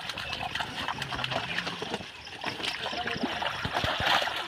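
Water splashing and sloshing in shallow pond water as fish are handled in a drag net pulled in to the bank, in quick irregular splashes.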